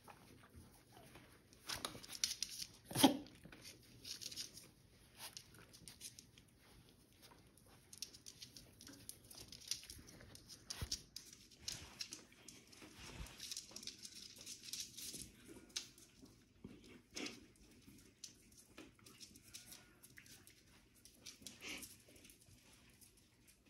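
Puppies and a cat play-fighting on a cork floor: scuffling, with paws and claws scratching and tapping on the floor. The loudest moment is a short sharp sound from a dog about three seconds in.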